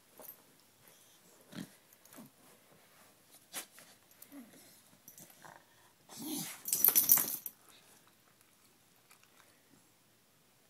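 Beagle lying on a bed, making a few small grumbles and then one long breathy groan about six seconds in, the loudest sound.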